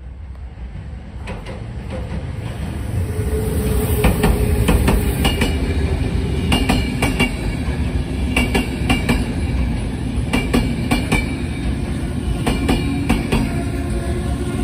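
Passenger train of electric-hauled coaches passing close by. Its wheels rumble steadily and clack in regular groups over rail joints about every second or two, growing louder over the first few seconds, with brief faint wheel squeal on some of the clacks.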